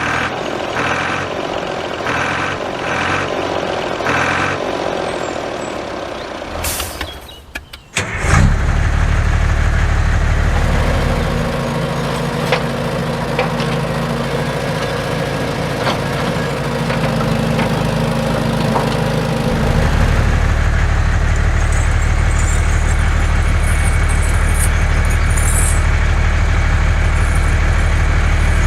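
A small engine starts about eight seconds in and then runs steadily with a deep, even sound. Its tone changes for several seconds in the middle before settling back.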